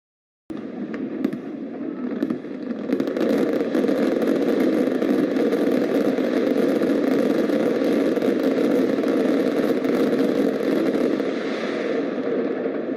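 Aerial fireworks bursting at close range in rapid succession: a dense, continuous rumble of bangs with sharp crackling all through it. It cuts in suddenly about half a second in.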